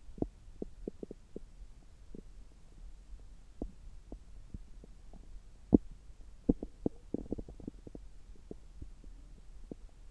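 Human bowel sounds heard through a stethoscope pressed to the belly: irregular soft pops and gurgles over a low steady hum, with the loudest pop about six seconds in and a quick run of them just after. The gut is actively digesting about three hours after a meal.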